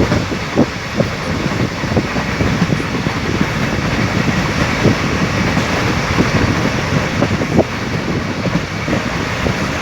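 An ICF passenger coach running at speed, heard from on board: a steady rumble and rush, broken by frequent irregular knocks and clanks from the wheels and the coach.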